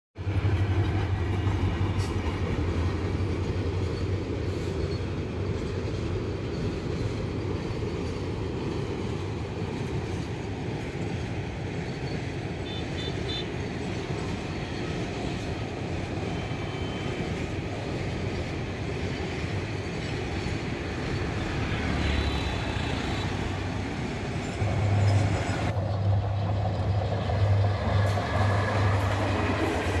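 Diesel-hauled trains passing close by: a steady low rumble of locomotive and rolling wagons, first a container freight train, then a passenger train. The sound changes abruptly about 26 seconds in and gets a little louder.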